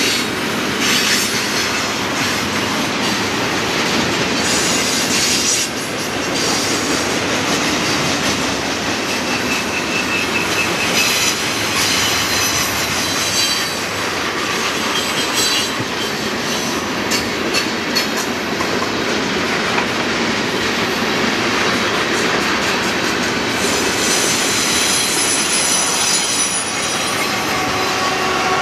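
Freight train cars rolling past at speed: a steady rumble and clatter of wheels on rail, with brief high wheel squeals now and then. Near the end, the mid-train Union Pacific diesel locomotives come by and their engine tone joins in.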